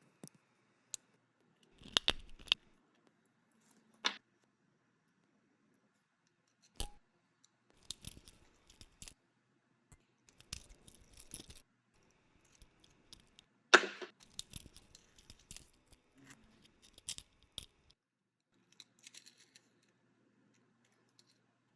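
Skateboard parts and hardware handled close to the microphone: scattered sharp clicks, metallic clinks and short rattles, with one loud clack about two-thirds of the way through.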